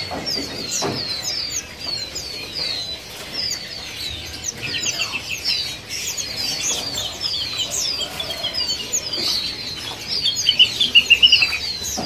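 Chorus of many small caged songbirds chirping, with repeated short high notes throughout. About ten seconds in, a faster run of louder notes rises above the rest.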